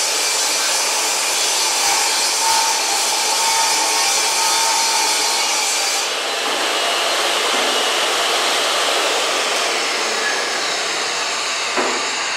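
A benchtop table saw's motor runs at full speed while a board is fed through the blade, making a loud, high, hissing whine. About halfway through, the saw is shut off and the pitch falls as the blade coasts down.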